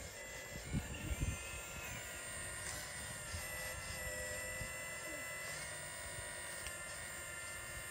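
Radio-controlled Hitachi excavator's electric motors whining steadily as it swings the boom and lowers the bucket, the pitch shifting now and then with the load. A few low thumps about a second in.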